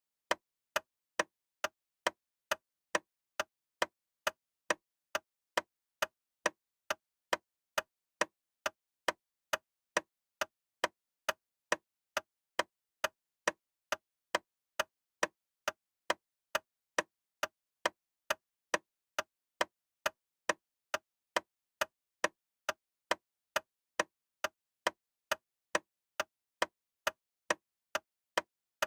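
Loud, sharp ticking, about two evenly spaced ticks a second, with silence between the ticks.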